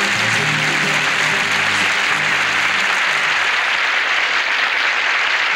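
Audience applauding steadily, while the song's last sustained notes die away in the first three seconds or so.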